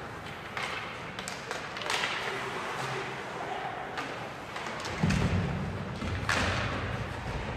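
Ice hockey being played: several sharp clacks and a heavy thud about five seconds in, with voices in the rink.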